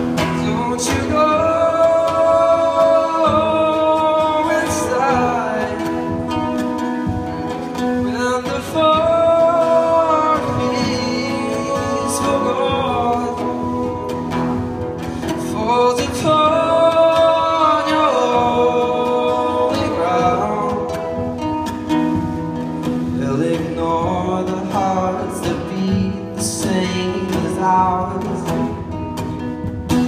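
Live acoustic guitar and male voice layered through a Boss RC-30 loop station: strummed guitar chords under sung vocal lines, a phrase that repeats about every seven seconds.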